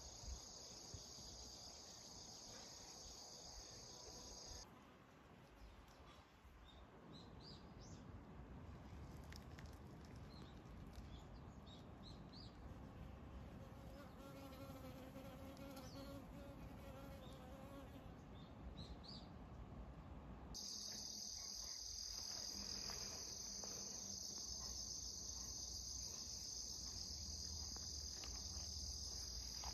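Crickets chirping in a steady, high-pitched drone. It drops out for a long middle stretch, leaving only scattered short high chirps and a faint low hum, then returns near the end.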